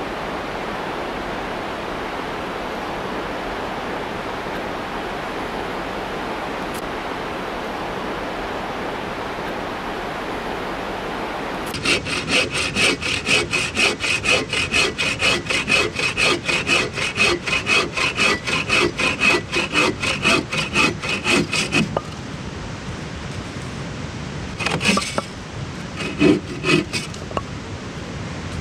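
A steady rushing hiss. About twelve seconds in, a hand saw starts cutting wood in quick, even back-and-forth strokes for about ten seconds, followed by a few separate knocks near the end.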